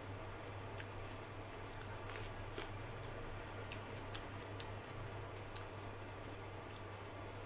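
Eating rice and dal by hand: fingers squishing and mixing the food on a plate, with scattered small wet clicks and mouth sounds, over a steady low hum.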